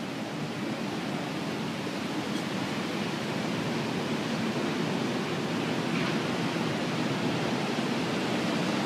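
Steady rushing noise of hurricane wind and water, slowly growing a little louder.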